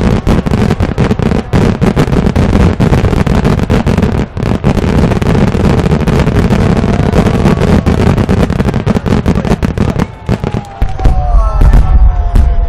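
Aerial firework shells bursting in a rapid, continuous barrage of bangs and crackle. About ten seconds in, deep booms come in with several whistling tones sliding in pitch, as a new volley of shells goes up.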